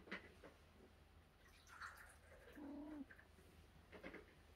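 Faint short cat call, a soft rise-and-fall, about halfway through, with a few light clicks and rustles near the start and end.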